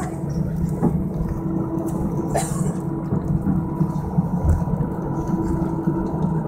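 Cabin noise of an Airbus A320 taxiing with its engines at idle: a steady low rumble with a faint steady hum, and a brief hiss about two and a half seconds in.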